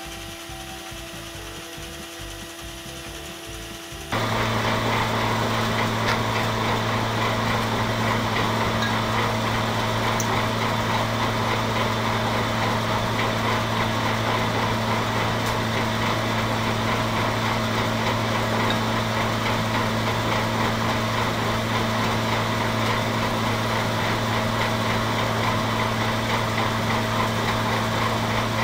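Forge air blower feeding the fire while a steel blade is brought up to hardening heat. A quieter rhythmic mechanical whirring gives way, about four seconds in, to a much louder, steady rush of air with a constant low motor hum.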